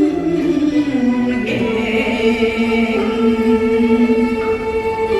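Cantonese opera duet singing in pinghou, the natural-voice male-role style, with the voice holding one long note through most of the stretch.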